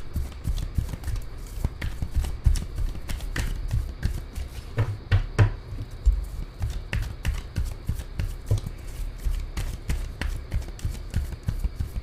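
A deck of tarot cards being shuffled by hand: irregular soft clicks and slaps of the cards, with dull knocks as the deck is handled.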